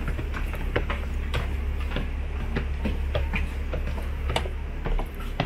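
Footsteps climbing a staircase with metal-edged treads, about two or three sharp steps a second, over a steady low hum.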